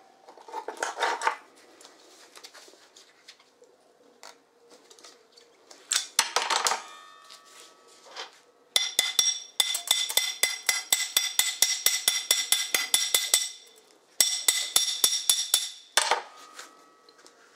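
Hand hammer rapidly striking a freshly welded steel bar, several ringing metallic strikes a second in two long runs, after clattering as the clamp comes off and the bar is picked up.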